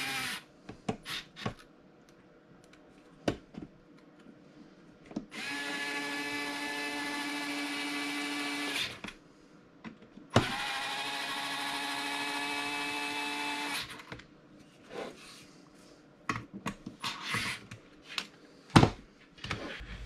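Small cordless electric screwdriver running in two steady whining bursts of about three and a half seconds, driving screws into the grinder's housing. Short clicks and knocks of parts being handled come between the bursts, with a louder knock near the end.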